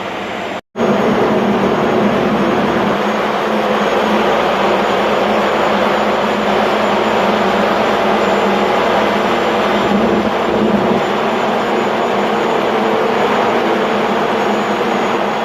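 Ship's engine-room machinery running, a loud, steady noise. It cuts out for an instant under a second in and resumes slightly louder.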